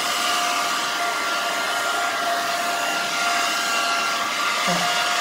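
Handheld hair dryer running steadily: an even rush of blown air with a steady whine from its motor.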